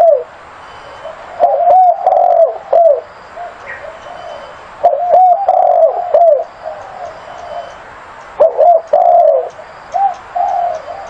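Zebra dove cooing: three phrases of quick, rising-and-falling coo notes a few seconds apart, with softer coos in between.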